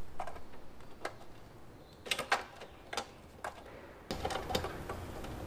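Scattered light metallic clicks and clinks of a 1969 Honda Sports Cub 50's drive chain being worked off its sprocket by hand.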